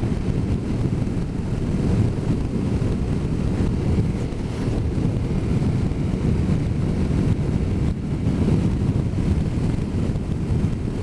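Steady low wind rush and road rumble on the microphone of a motorcycle riding at speed.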